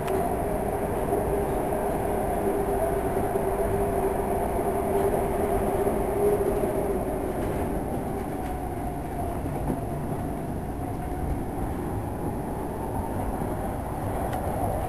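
SEPTA Market-Frankford Line Adtranz M4 subway car heard from inside while running: a steady rumble of wheels on rail with a droning two-pitch whine that fades about halfway through.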